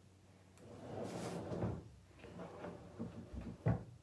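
Rummaging and handling noises: a scraping slide about a second in, then a few light knocks and a short dull thump near the end.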